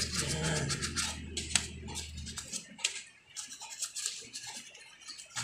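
Small bristle brush scrubbing the finned cylinder head of a motorcycle engine with an oxalic acid and dish-soap degreaser, in quick repeated scratchy strokes. A low steady hum underneath stops about halfway through.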